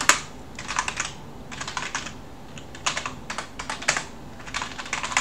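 Typing on a computer keyboard: irregular bursts of quick keystroke clicks with short pauses between them.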